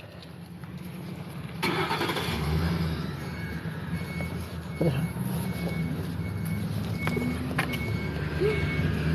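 Police van (paddy wagon) engine pulling away: a low rumble that swells about a second and a half in. From about three seconds in, a high beep repeats evenly, about twice a second.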